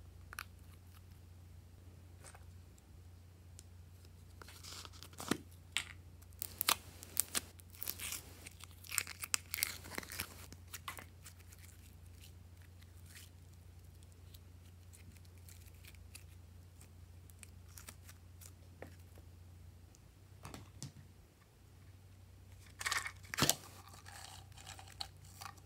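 Slime being handled and stretched by hand, with squeeze bottles and plastic containers used over it: clusters of short crackling clicks, a busy stretch in the first half and another near the end, over a faint steady hum.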